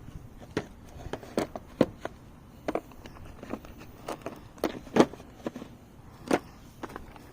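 Irregular clicks and clacks of hand tools being handled and set into a tool-set case, about a dozen sharp knocks spread unevenly, the loudest about five seconds in.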